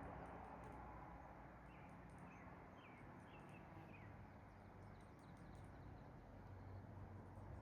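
Near silence: faint outdoor ambience, with a handful of short, faint bird chirps about two to four seconds in.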